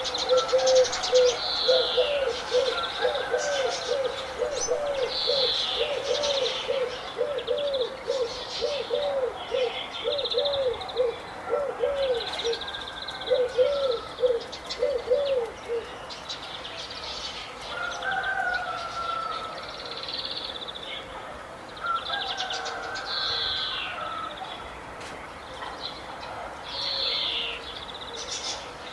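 Several birds singing and chirping together, with high chirps and trills throughout. Over this, for roughly the first half, one bird repeats a low note over and over, about one and a half times a second, then stops.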